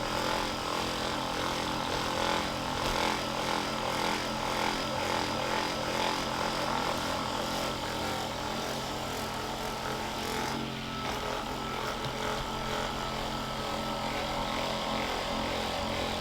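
Electric percussion massager running steadily against the glute, a motor hum made of several even tones. The hum dips briefly about ten and a half seconds in.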